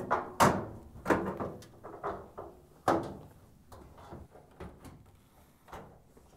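Whirlpool dryer's sheet-metal front panel clunking and rattling as it is hooked onto its bottom mounting clips and swung shut against the cabinet: a string of sharp knocks over the first three seconds, then a few fainter taps.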